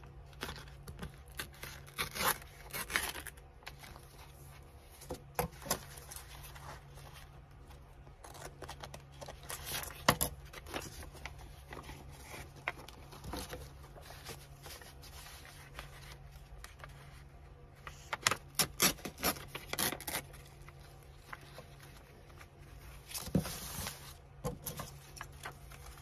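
Paper being handled during journal making: intermittent rustling and scraping of paper, with scattered sharp clicks and taps coming in clusters.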